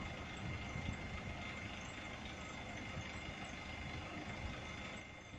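Skip-loader truck's diesel engine running steadily, with a thin steady whine over it.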